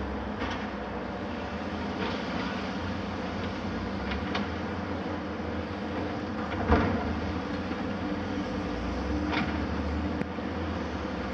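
Heavy diesel demolition machinery, excavators and a tracked mobile crusher, running steadily with a low engine drone. Sharp clanks break in about five times, the loudest about two-thirds of the way through.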